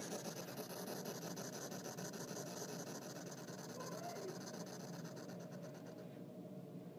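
African pygmy hedgehog hissing, a rapid pulsing hiss that fades out about six seconds in: her defensive warning at being approached too closely.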